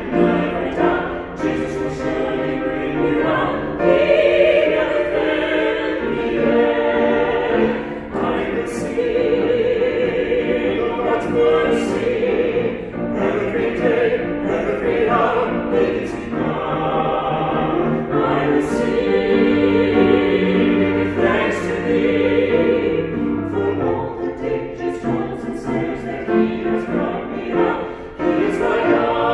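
A small vocal ensemble of two women and two men singing a church anthem in parts, accompanied on grand piano. The voices sing with vibrato, moving through held notes and phrases.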